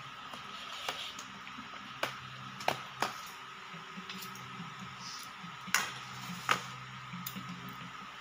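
Slotted metal spoon pressing sticky palm-sugar glutinous rice flat in an aluminium tray, with a squishy sound and a handful of sharp clicks of metal against the tray, the loudest two about six seconds in. A steady hum runs underneath.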